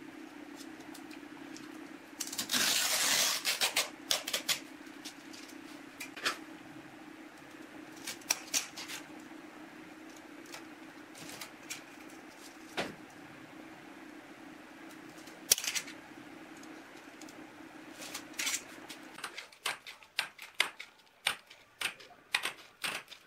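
Scissors snipping repeatedly through cloth-backed aluminium oxide sanding belt near the end, a quick run of sharp clicks. Before that, a steady low hum sits under scattered taps and scrapes of the belt and a steel ruler being handled, with one loud rough scrape about two and a half seconds in.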